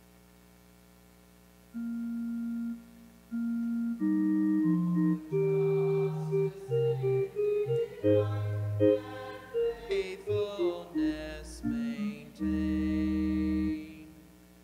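An organ sounds two held notes, then plays the psalm's refrain melody over held bass notes from about four seconds in, with a voice singing the refrain along with it.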